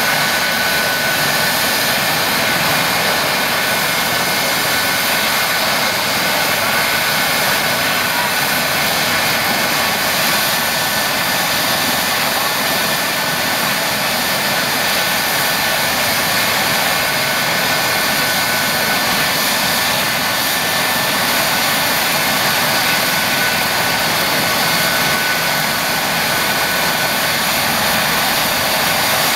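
Eurocopter EC135 helicopter running on the ground, its twin turbines and main rotor turning at a steady speed: a steady high whine over an even rushing noise, with no change in pitch or loudness.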